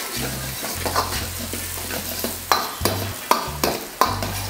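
Steel ladle stirring finely chopped onion, ginger and garlic sautéing in hot coconut oil in a kadai, with a steady sizzle and several sharp clinks and scrapes of the ladle against the pan.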